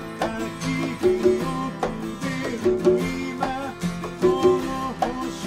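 Acoustic band music led by plucked string instruments, with a steady run of picked notes.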